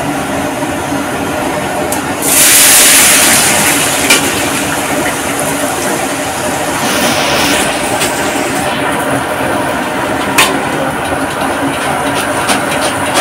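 Thin matchstick potato strips dropped into a large iron wok of hot oil: a loud sudden sizzling hiss about two seconds in, a second smaller burst a few seconds later, then steady bubbling deep-frying. A couple of sharp knocks of the metal slotted spoon against the wok.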